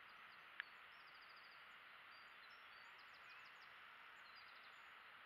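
Near silence: a steady faint hiss with faint bird chirps over it, and one short click about half a second in.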